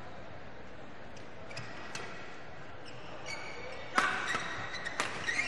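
Badminton rally on an indoor court: shoes squeaking on the court surface, and a racket striking the shuttlecock sharply about four seconds in and again a second later, over steady hall noise.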